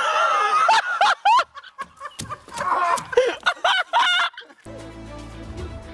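A person's high-pitched, wavering cries in short bursts. About four and a half seconds in, background music cuts in abruptly.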